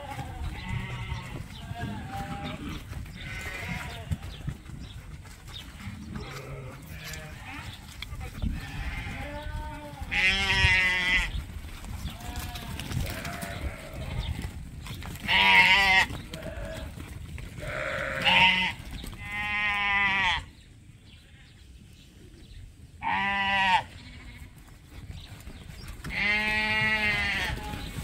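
Suffolk and Dorset sheep bleating again and again: fainter bleats at first, then about six loud, drawn-out bleats from roughly a third of the way in.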